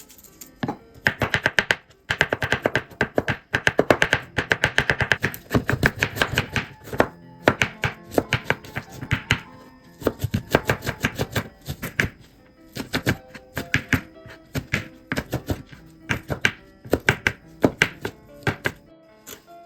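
Rapid knife chopping on a cutting board, a quick run of sharp strokes in bursts with short pauses, over background music.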